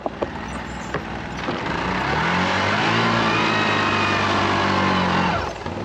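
Vehicle engine revving up and pulling under load as it drags a boat up out of the water by a rope and soft shackles; it holds steady for a few seconds and then eases off near the end. A few knocks at the start.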